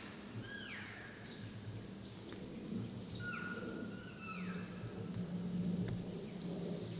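Birds calling: short whistled notes that slide down in pitch and hold briefly on a lower note, in pairs near the start and again about three to four seconds in, over a steady low hum.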